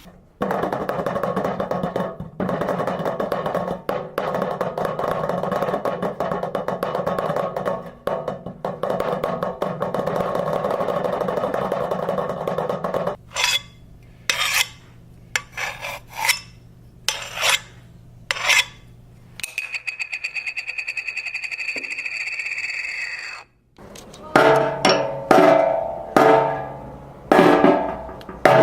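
A sequence of foley sound effects. First a dense, continuous rattling for about thirteen seconds, then a run of sharp single taps. A steady ringing tone follows for about four seconds and cuts off suddenly, then hollow, pitched knocks come about once a second.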